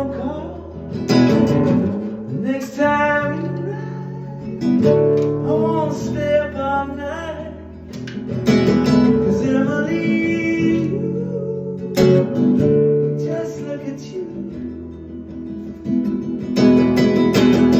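A man singing in phrases over a strummed acoustic guitar.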